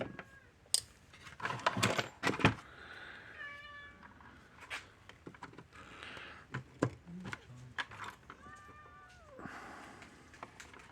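An animal calls twice, short pitched calls, the second falling in pitch at its end. Scattered light clicks and taps of small parts being handled sound around them.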